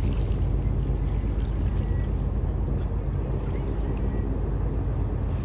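Steady low drone of the car ferry Victoria of Wight's engines as it passes, with light water lapping over it.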